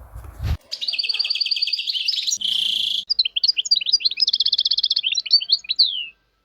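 Songbird singing a fast, high trilled song with a buzzy note midway and varied chirps, ending in a falling note, after a knock about half a second in.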